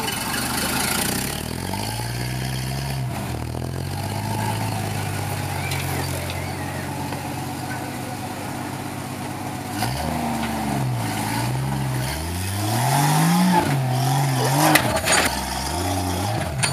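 A flat-fender Jeep rock crawler's engine pulling under load as it climbs a near-vertical rock chute. It runs fairly steadily at first, then revs up and down in several rising pulls in the last third. A couple of sharp knocks come near the end.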